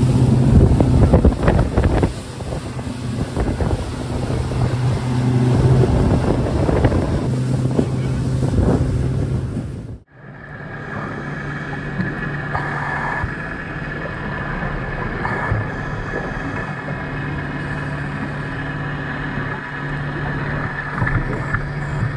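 A Skeeter center-console boat running at speed, its engine drone under heavy wind noise on the microphone. About ten seconds in, the sound cuts abruptly to an underwater recording: a steady low hum with a steady high whine above it and a few short rushes of noise.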